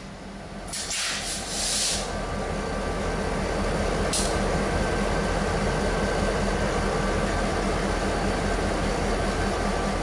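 EMD diesel locomotives, a GP38 leading an SD40-2, running at low speed, their engines rumbling steadily and growing louder as they draw near. Two hisses of compressed air: a longer one about a second in and a short, sharp one about four seconds in.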